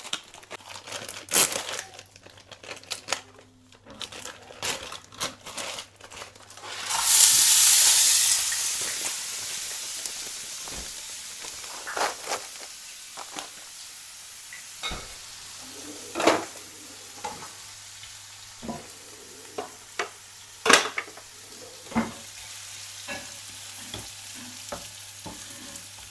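Onion and garlic going into hot olive oil in a frying pan: a sudden loud hiss about seven seconds in that settles into steady sizzling. Scattered knocks and clinks of stirring run over it.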